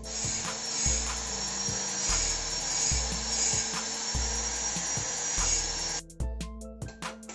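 Steady rasping of a hand tool working metal, which stops about six seconds in. Background music with a steady bass beat plays over it.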